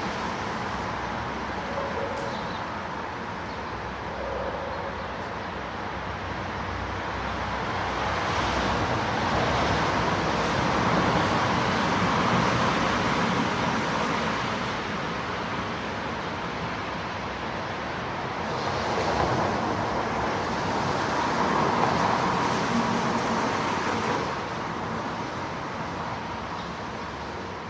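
Street traffic about 50 m off, steady noise that swells twice as vehicles pass, with light rain.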